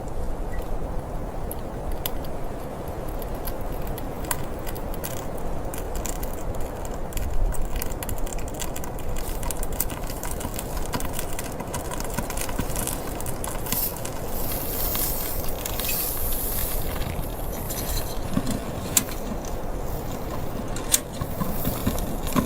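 Wood campfire crackling, with scattered sharp pops that come thicker in the second half, over a steady low rushing noise.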